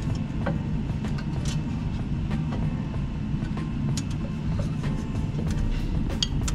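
Scattered light metallic clicks and clinks as a stainless exhaust head pipe, gasket and bolt are handled and fitted at a turbo outlet, over a steady low background hum.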